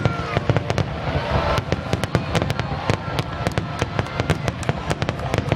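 Fireworks going off in a dense barrage: many sharp cracks a second over a continuous low rumble, like crackling star shells.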